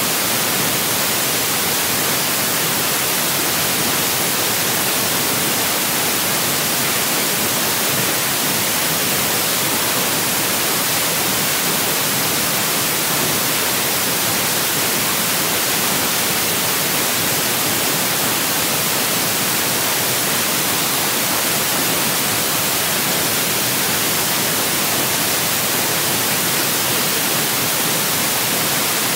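Steady, loud hiss of static noise, unchanging throughout and strongest in the high frequencies: electronic recording noise with no other sound over it.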